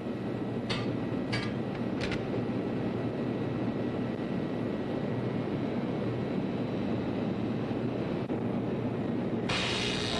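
Engine-room machinery, a large generator and its motor, running with a steady drone. Three short sharp sounds come in the first couple of seconds, and music comes in near the end.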